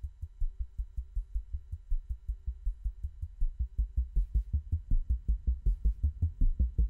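Eurorack modular synthesizer playing a fast, even, pulsing low bass sequence, about six or seven notes a second. From about halfway the notes grow brighter and louder as a knob on the synth is turned.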